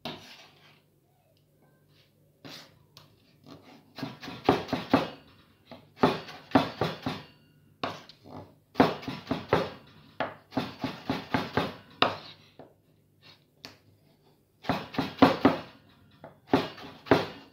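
Chef's knife dicing tomato on a wooden cutting board: quick runs of knife strokes knocking on the board in bursts of about a second with short pauses between, over a low steady hum.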